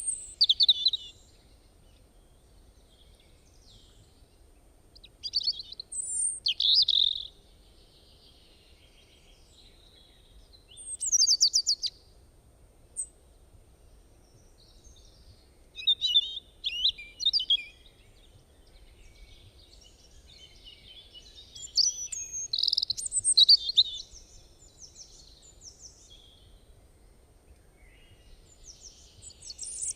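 Songbirds singing in short bursts of high chirps and warbled phrases, about six outbursts spaced a few seconds apart, over a faint steady background hiss of rain.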